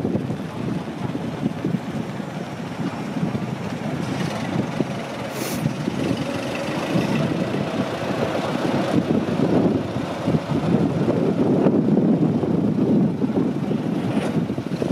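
Engine of a vintage wooden-bodied motor bus running as it drives slowly past, a rough low rumble that grows somewhat louder in the second half.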